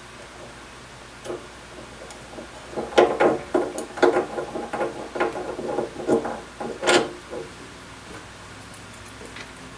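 Light clicks and knocks of an aluminum depth-stop collar being handled and fitted onto a mini drill press quill, mostly from about three to seven seconds in, with one sharper knock near the end of that run.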